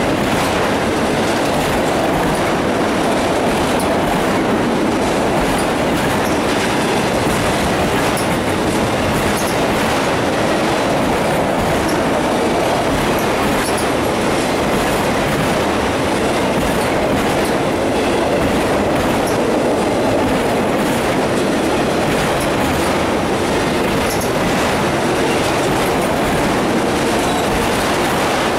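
Freight train of autorack cars rolling past close by: a steady rumble of steel wheels on rail.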